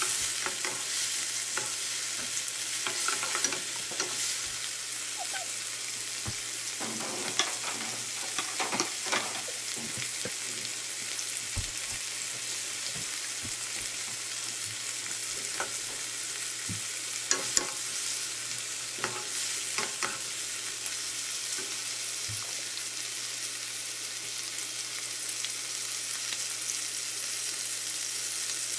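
Diced chicken, onion and peppers frying in a non-stick wok with a steady sizzle. A wooden spatula scrapes and knocks against the pan now and then, mostly in the first two-thirds.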